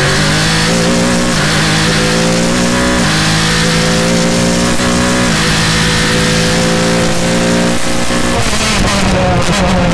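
Single-seater race car's engine heard onboard, accelerating hard with the revs climbing and dropping at upshifts about every two seconds. Near the end the revs fall away.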